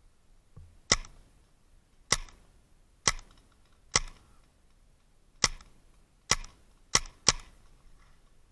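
Eight sharp single shots from a paintball marker fired close to the microphone, roughly one a second, the last three coming in quicker succession.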